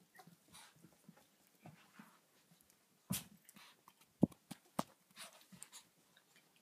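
Yorkshire terrier puppies moving about, with faint scuffling and small noises, and three sharp knocks in the second half.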